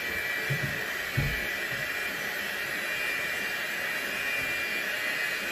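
Electric hand mixer running steadily, its beaters turning through dry flour and cocoa in a glass bowl. A couple of dull knocks come in the first second and a half.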